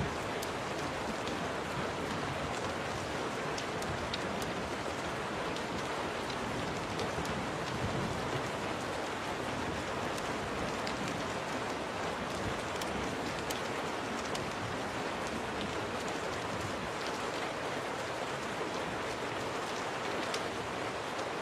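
Steady rain falling, an even hiss with scattered faint sharp ticks.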